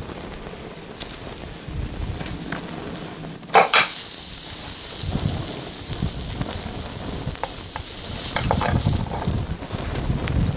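Burning Lego plastic sizzling and hissing in open flames. About three and a half seconds in there is a sharp clank as the red-hot muzzle brake falls off onto the tile, and the sizzling hiss grows louder after it.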